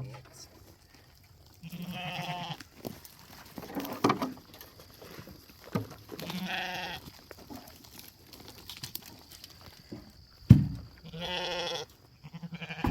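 Sheep bleating three times, each call about a second long, as they wait hungry for grain feed. A sharp knock comes just before the third bleat.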